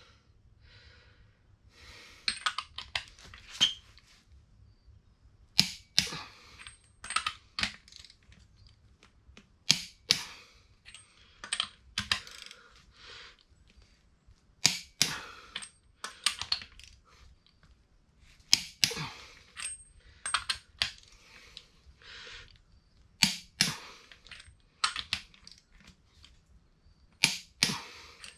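Socket wrench ratcheting on the cylinder head stud nuts: short bursts of sharp metallic clicks every few seconds.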